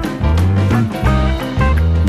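Instrumental background music with a steady bass beat.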